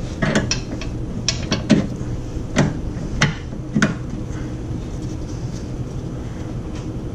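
Metal suspension parts and tools being handled at a rear lateral link: a series of sharp metallic clinks and knocks, about eight in the first four seconds, over a steady low hum.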